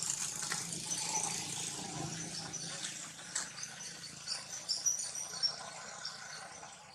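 Insects chirping steadily, with a few short, louder high chirps in the second half.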